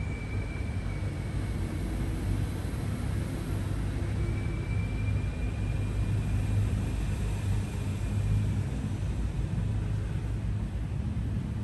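Steady low rumble of background noise, with a faint high whine that fades in and out twice.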